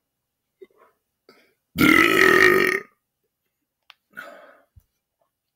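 A man belching once, loud and drawn out for about a second, near the middle. A few faint mouth sounds come before it, and a fainter breathy sound follows about two seconds later.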